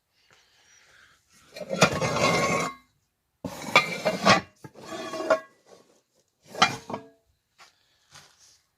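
Hard objects clattering and clinking as a pile of stored items is handled and moved. There are several short bursts of rattling, the loudest starting about a second and a half in.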